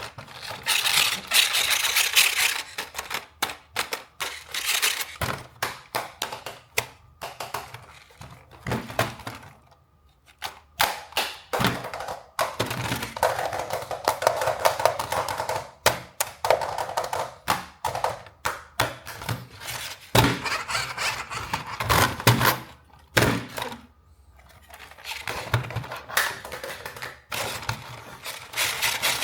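Plastic toy parts and packaging handled at close range: a dense, irregular run of clicks, taps, thunks and crinkles, with a few short pauses.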